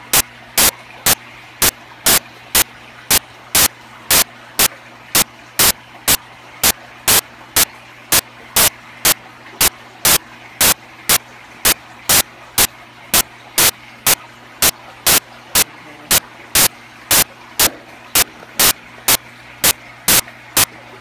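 A train of sharp, loud clicks, evenly spaced about twice a second, over a steady low hum.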